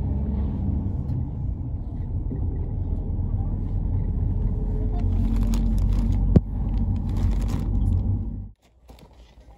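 Steady low rumble of a moving road vehicle, with a single sharp click about six and a half seconds in. It cuts off abruptly about eight and a half seconds in.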